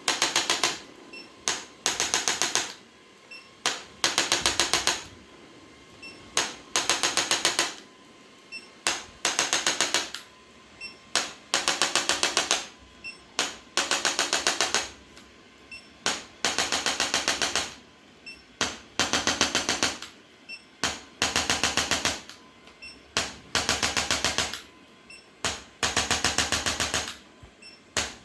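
Handheld chiropractic adjusting instrument firing rapid clicking thrusts. The pattern repeats about every two seconds: a single click, then a burst of fast, even clicks lasting under a second.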